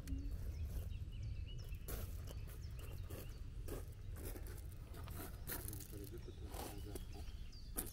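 Outdoor woodland ambience: a steady wind rumble on the microphone and small birds chirping, with scattered crunches from footsteps and pushchair wheels on a gravel path. A faint voice is heard briefly.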